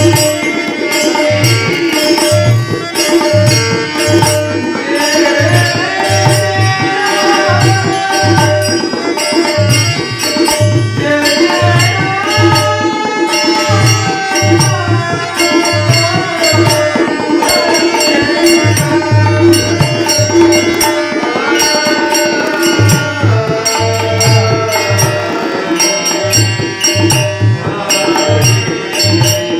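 Bhajan music: tabla beating a steady rhythm under a melody that glides up and down over a held drone, with bright percussive ticks on top.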